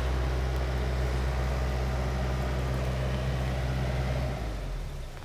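Mini excavator's diesel engine running steadily with a low drone, which falls away about four seconds in.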